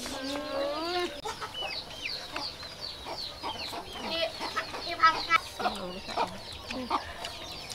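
Chickens clucking and calling, many short calls overlapping one another.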